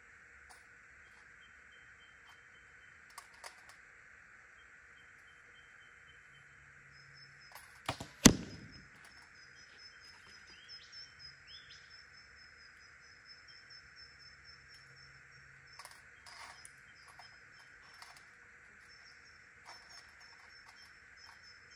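A PSE Carbon Stealth bow shot once: a sharp, loud release with a short ringing tail about eight seconds in. Quieter clicks come before and after it.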